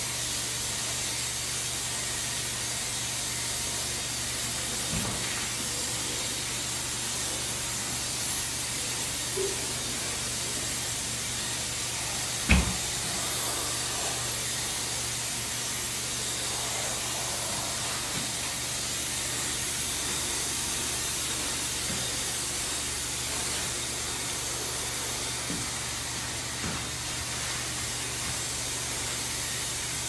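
Graco Pro Xp60 electrostatic air spray gun hissing steadily as it atomizes catalyzed acrylic enamel at low air pressure. A single knock about twelve seconds in.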